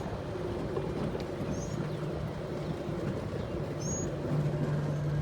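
Steady low motor hum, like distant traffic or an engine, with a couple of faint, brief high chirps.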